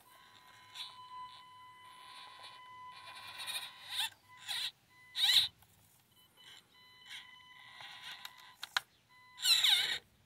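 Axial SCX24 micro crawler with an upgraded P90 motor, its electric motor and gears whining as it climbs rocks: a steady high whine under light throttle, broken by several short, louder whines that waver in pitch as the throttle is blipped, the loudest about five seconds in and near the end.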